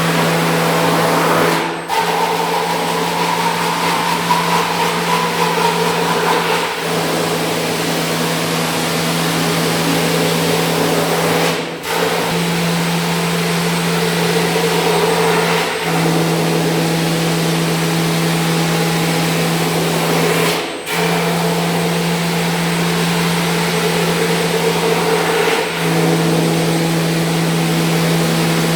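High-speed milling spindle on a KUKA KR240 robot milling cell running with a steady hum and a dense hiss, briefly dropping out about five times.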